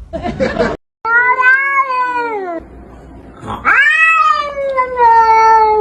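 Orange tabby cat yowling in two long, drawn-out cries while a goose grips its head in its beak. The first cry falls in pitch; the second rises, then slowly sinks.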